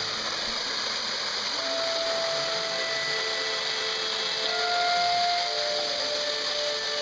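Waterfall pouring into a rock pool: a steady rush of falling water, with a few faint thin held tones over it.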